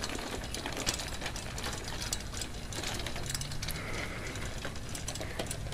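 John Deere pedal tricycle rolling over a gravel driveway: a steady, rattling crunch of its hard wheels on the loose stones.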